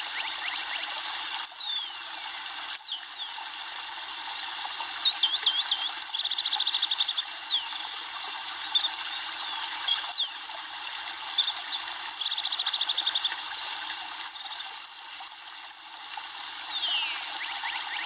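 Steady rushing hiss of a small stream, with small birds chirping over it and a fast trill a few times.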